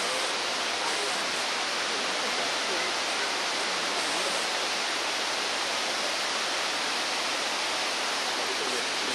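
Steady rushing of a waterfall cascading into a pond, with a faint murmur of visitors' voices underneath.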